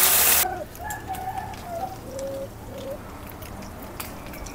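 Beaten egg mixture hitting hot oil in a wok, sizzling loudly, then cutting off suddenly about half a second in. After that it is much quieter: short bird calls and the faint crackle of the frying eggs.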